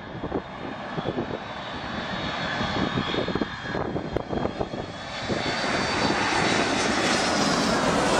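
Boeing 757 jet airliner on low final approach, its engines' whine and rumble growing steadily louder as it closes in and passes low overhead.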